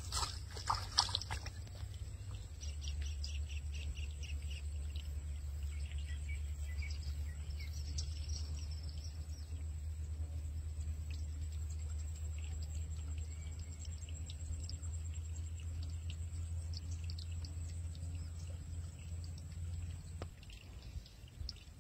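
A blue plastic bag rustles briefly at the start as it is handled. After that comes a steady low rumble with faint high chirps and ticks, typical of birds in open farmland.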